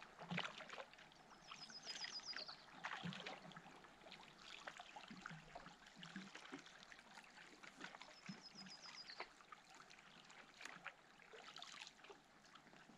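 Faint water trickling and splashing around a canoe being paddled upriver, with scattered soft knocks. A short, high, descending trill sounds twice, about six seconds apart.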